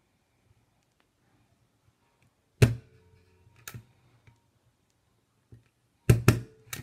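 A hand stapler driving staples through folded polypropylene filter fabric. Sharp clacks: one about two and a half seconds in, with a short ring after it, a lighter one a second later, and three in quick succession near the end.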